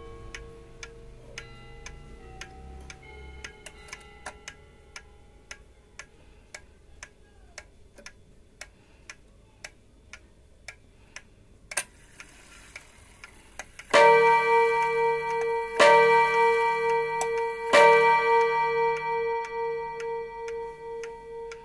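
Seiko 30-day wall clock movement ticking steadily. After a sharp click, its hammer strikes the bell three times about two seconds apart, each stroke ringing on with a wavering tone that slowly fades.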